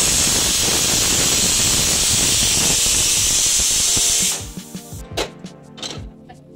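Pressure cooker venting steam: a loud, steady hiss that stops about four seconds in.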